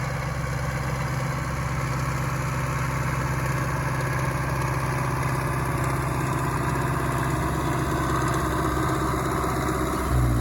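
Diesel engine of a John Deere 333G skid steer running steadily, with a steady low hum. The note shifts near the end.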